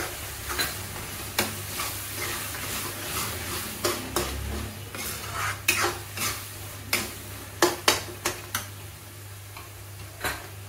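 Flat metal spatula scraping and clinking irregularly against a metal kadai as a thick tomato-onion pav bhaji masala is stirred, with the masala sizzling as it fries.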